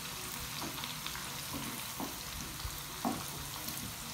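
Chopped garlic and green chillies frying in hot oil with a steady sizzle, stirred with a wooden spatula that scrapes and taps the ceramic-coated pan a few times.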